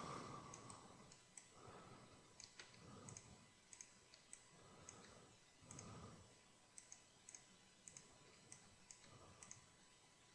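Near silence with faint, scattered computer mouse clicks.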